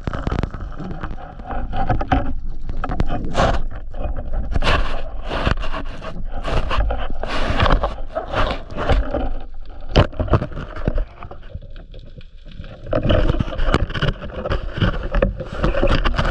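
Underwater sound of a spearfishing diver working a speargun into a rock crevice: a busy run of clicks, knocks and scrapes against the rock. One sharp knock about ten seconds in is followed by a quieter stretch.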